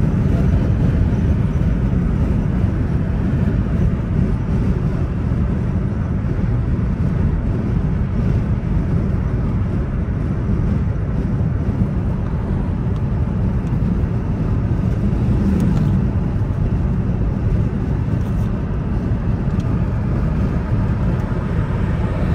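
Steady low rumble of a car being driven: road and engine noise with no letup.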